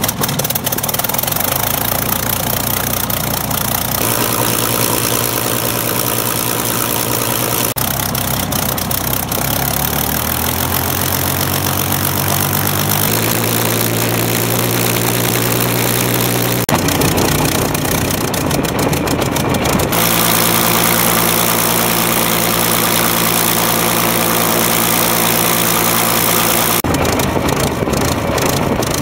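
Rolls-Royce Griffon V12 engine of a Spitfire Mk XVIII running on the ground with its cowlings off, turning the five-bladed propeller. Its pitch shifts abruptly several times and rises slowly once.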